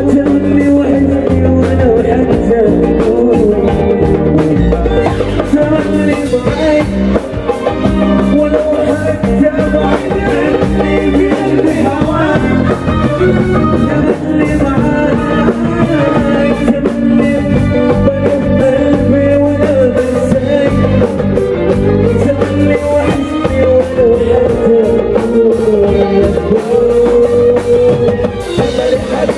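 Live band playing, with drum kit, bass guitar, electric guitar and keyboard, and male voices singing into microphones over it.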